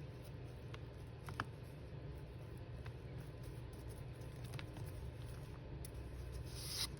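Faint scattered clicks and taps from handling paper and craft supplies on a desk, the sharpest about a second and a half in, with a short rustle near the end, over a steady low hum.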